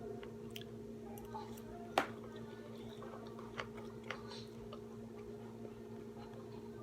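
Soft chewing and mouth sounds from eating, with scattered small clicks and a sharper click about two seconds in, over a steady low hum.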